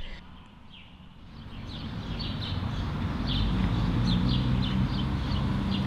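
Outdoor ambience fading in: small birds chirping in short repeated calls, a few each second, over a low steady rumble.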